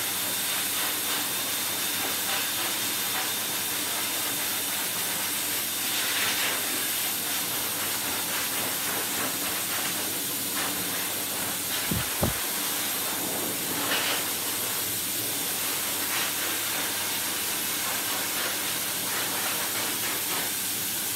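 Hose-type pet grooming dryer blowing air onto a dog's coat: a steady loud hiss, with two short thumps about twelve seconds in.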